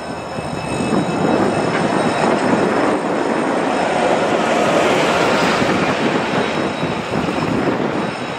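A double-decker city bus driving past close by. The noise of its engine and tyres swells about a second in, is loudest around the middle, and eases off near the end.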